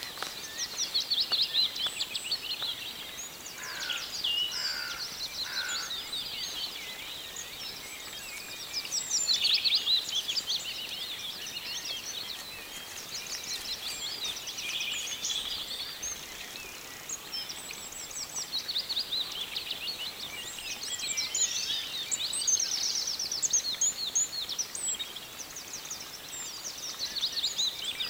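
Several songbirds singing at once: rapid high trills and chirps overlapping, swelling and easing every few seconds, over a faint outdoor hiss.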